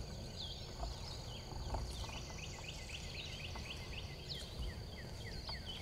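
Songbirds singing in spring woodland: a rapid series of short downslurred chirps, joined by other scattered calls, over a steady high-pitched whine and a low wind rumble.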